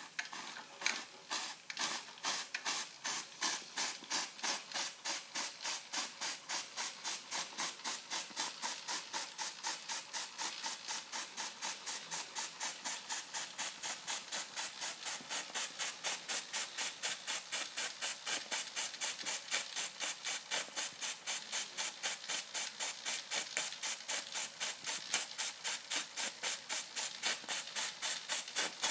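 Fleischmann 135/2 toy stationary steam engine running, its exhaust giving a steady rhythm of hissing puffs. The puffs quicken over the first several seconds, from about two a second to about four a second, then hold an even pace.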